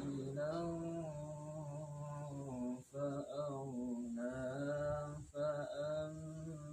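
A young man reciting the Quran in melodic tilawah style, unaccompanied, drawing out long held notes that glide in pitch, with short pauses for breath about three and five seconds in.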